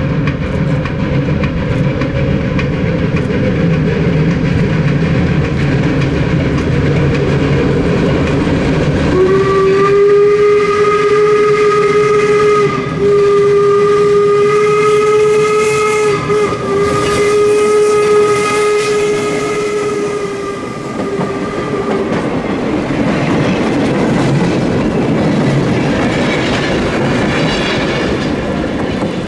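Replica 4-4-0 American-type steam locomotive No. 17 'York' running under steam with a train of wooden coaches. About nine seconds in, its steam whistle sounds one long steady blast, broken twice for an instant, lasting about thirteen seconds. Then the train rumbles past with wheels clicking over the rail joints.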